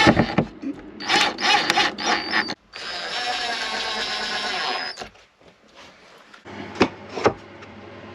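Power drill running steadily for about two seconds, between sharp knocks and clicks of tools and panels being handled.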